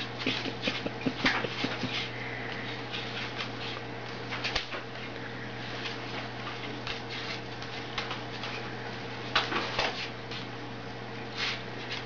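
White cockatoo pecking and scrabbling on a wooden tabletop: irregular sharp taps of beak and claws on wood, thickest in the first two seconds and again about nine and a half seconds in, over a steady low hum.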